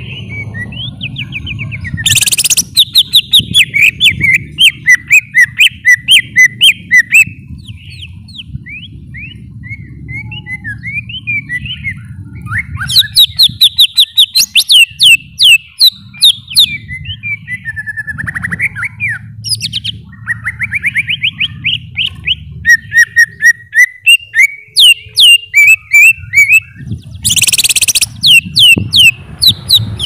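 Cucak ijo (green leafbird) singing: bursts of fast, loud whistled notes and chattering trills, with harsh hissing bursts about two seconds in and again near the end. A steady low hum runs underneath.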